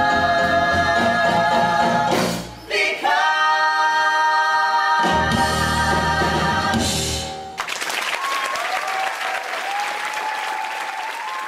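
Four singers, two men and two women, holding the final sustained chords of a song in harmony. The singing stops about seven and a half seconds in and audience applause takes over.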